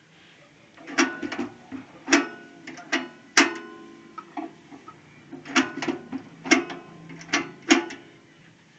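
MD-11 manual dial-type card embosser stamping characters into a PVC card: about nine sharp clacks in uneven bunches, some with a short metallic ring, with lighter ticks between them as the character dial is turned.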